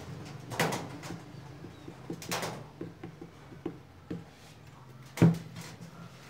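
Wood glue squeezed from a plastic squeeze bottle onto a board in two short noisy squirts, with small ticks, then a sharp knock as the bottle is set down on the wooden bench, over a steady low hum.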